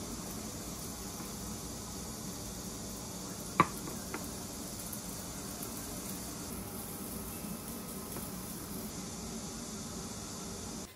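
Food sizzling in a hot frying pan, a steady hiss with a sharp click about three and a half seconds in and a fainter one just after.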